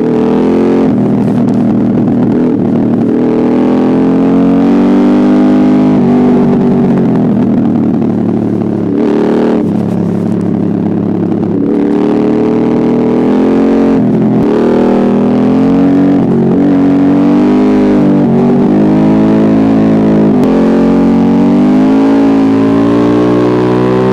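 Aprilia Dorsoduro 1200's V-twin engine through an Arrow exhaust with the dB killer removed and the catalyst deleted, running loud under way. The pitch climbs and falls again and again as the engine revs up and comes back down.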